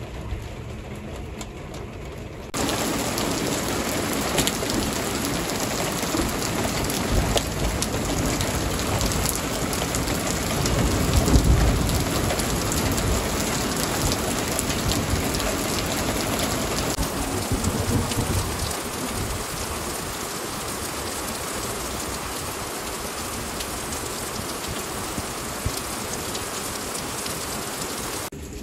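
Heavy rain pouring down, coming in loud about two and a half seconds in. Low rumbles of thunder swell around eleven seconds in and again around eighteen seconds in.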